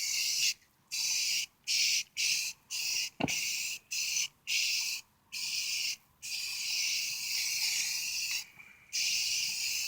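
Aerosol can of self-etching primer spraying in repeated short bursts, about ten in quick succession, then longer continuous passes, as the top sides of brake calipers are primed. A single sharp knock about three seconds in.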